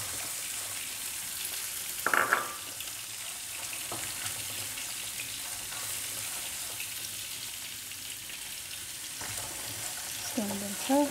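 Diced onion and peas sizzling in a non-stick frying pan as they are stirred with a spatula: a steady frying hiss, with one short, louder knock about two seconds in.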